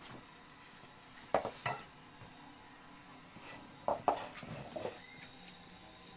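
Kitchen utensils and dishes clinking and knocking in short handling sounds, a pair about a second and a half in and a cluster about four seconds in.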